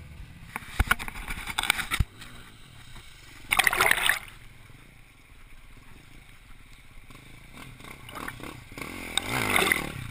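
Dirt bikes splashing through a shallow creek: a sudden loud splash about three and a half seconds in, engines running further off in between, and near the end a bike rides through the water close by, its engine and the spray swelling up.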